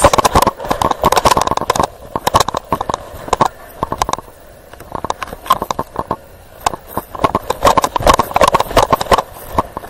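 A police body-worn camera jostling on the officer's chest during a foot chase: rapid, irregular knocks and scraping against the uniform, with running footsteps. It thins out for a few seconds in the middle and picks up again near the end.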